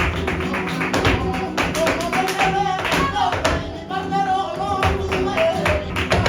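Flamenco music: guitar and a singing voice over sharp, rhythmic percussive strikes.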